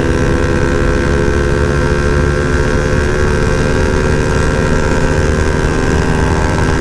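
Motorcycle engine running steadily at highway cruising speed, its pitch easing slightly lower, heard under heavy wind buffeting on the rider's microphone.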